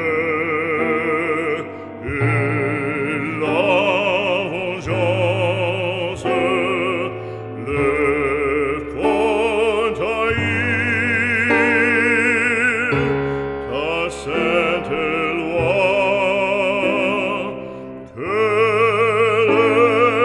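Operatic singing with a wide vibrato on long held notes, over sustained low orchestral notes.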